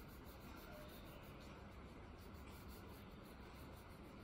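Faint scratching of an oil pastel stick rubbed back and forth across paper.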